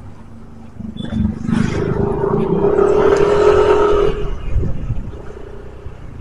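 A motor vehicle's engine note swells, peaks about three seconds in and fades again, over steady road noise.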